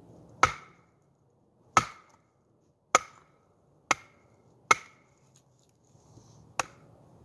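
Batoning: a wooden baton strikes the spine of a D2-steel Bobcat Kukri Bowie knife, driving the blade down through a split of firewood. Six sharp knocks at an uneven pace, each with a brief metallic ring from the blade; the last one is softer.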